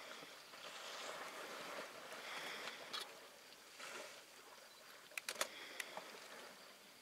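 Water sloshing and splashing at a waterhole's edge as African elephants drink, in soft swelling waves, with a few sharp clicks a little past the middle.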